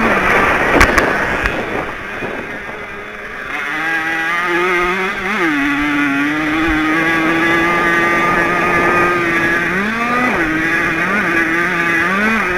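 Small 50 cc two-stroke racing moped engine, heard on board while racing. After a rougher, slightly quieter stretch with wind rush, it holds a high, steady rev. Near the end its pitch dips and climbs back several times.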